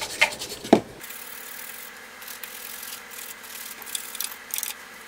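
Small tool and tissue scratching and rubbing against a circuit board, with two sharp knocks in the first second followed by faint, intermittent scratchy strokes.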